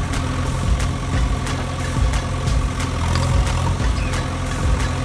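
An engine idling steadily with a low, even rumble, overlaid by frequent light clicks.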